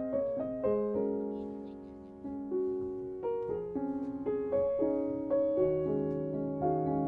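Background music: a gentle piano melody played slowly, note by note, with sustained chords.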